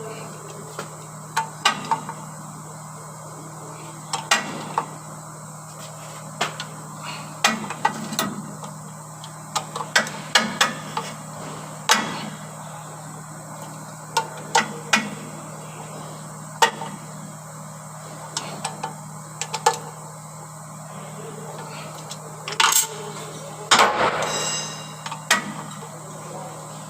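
Irregular metallic clinks and knocks of hand tools and parts during clutch pressure plate and disc work, with a louder clatter near the end, over a steady low hum.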